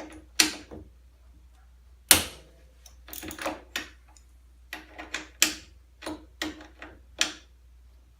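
Hand ratchet working the 13 mm through-bolt of a snowmobile idler wheel: scattered clicks in short irregular groups, with one sharp metal knock about two seconds in.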